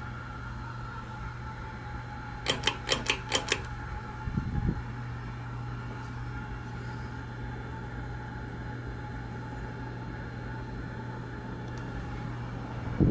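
Emerson ceiling fan running with a steady motor hum. A quick run of about five sharp clicks comes about two and a half seconds in.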